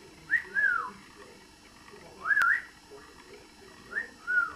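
Pet parrot making three short whistled calls, each a quick two-part glide up and down in pitch, spaced about two seconds apart.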